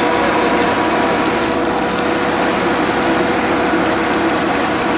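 Tractor engine running steadily, with no revving.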